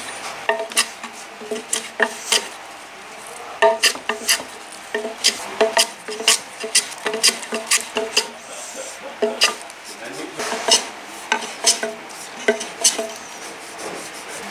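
Japanese hand plane (kanna) taking short, quick strokes across a wooden plug to shave it flush with the beam. The strokes are sharp and scraping, about one or two a second, with a brief pause about three seconds in.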